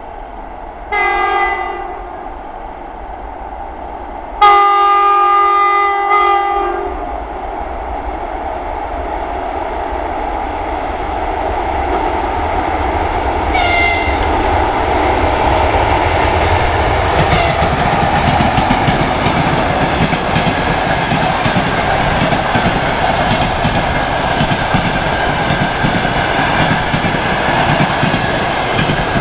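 EP1M electric locomotive sounding its horn as it approaches: a short blast about a second in, a longer, louder blast of about two seconds around four and a half seconds in, and a brief toot as it draws level. The passenger train then runs past, wheels clattering rhythmically over the rail joints, the rumble growing louder and staying loud as the coaches go by.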